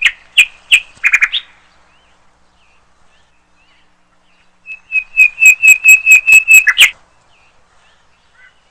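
A small bird calling in high whistled notes. It gives a few notes at the start, then a quick run of about ten notes, about five a second, ending in a short downward slide.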